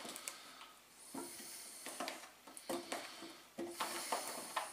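Potatoes dropped one at a time into a slow cooker pot: several separate knocks, each with a brief ring.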